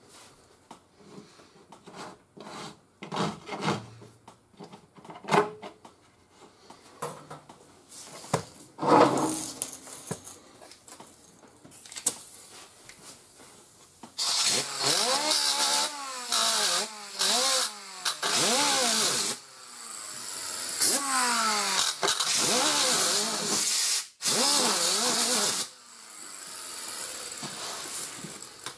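Scattered scraping strokes and clicks of a Surform file ('cheese grater') on body filler. About halfway in, an air-powered disc sander grinds the filler in three long, loud runs, its whine repeatedly dipping and rising in pitch as it bears on the surface.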